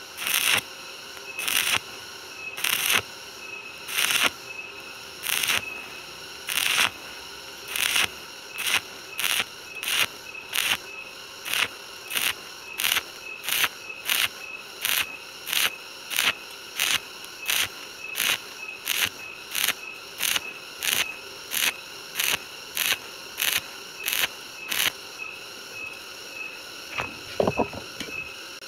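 Stick (arc) welding on galvanized steel tube with a stitch technique: short bursts of arc crackle, about one a second at first, then about twice a second. The bursts stop a few seconds before the end, and a brief knock follows near the end.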